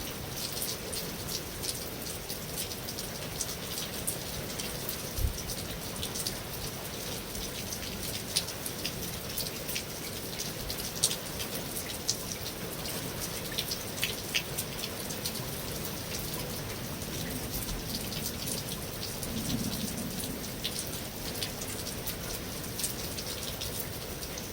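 Steady rain on a metal roof, a constant hiss dotted with many sharp individual drop hits. A faint low rumble swells briefly near the end.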